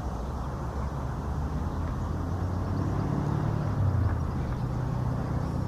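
Road traffic on a bypass: a steady rumble of passing vehicles, with a low hum swelling about halfway through.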